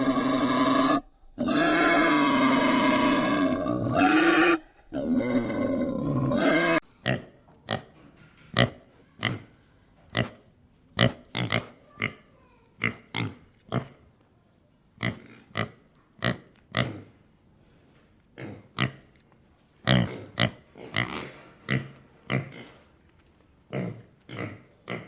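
A pig: first a few seconds of long, loud, pitched calls in three stretches, then a series of short grunts, roughly one a second and irregularly spaced.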